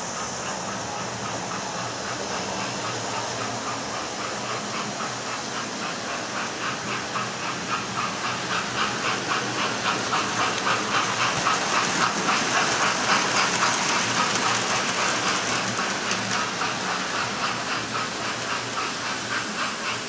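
Model steam locomotive's sound decoder playing a rapid, rhythmic steam chuff with hiss as the digitally controlled GWR King class 6009 King Charles II model runs past hauling Pullman cars. It grows louder toward the middle and fades near the end.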